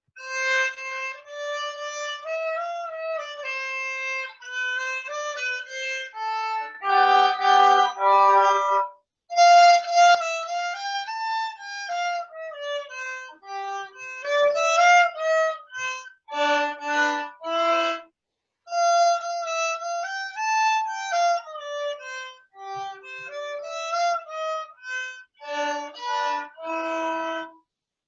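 Accordion played solo: a melody line with occasional lower chords under it, breaking off briefly twice between phrases.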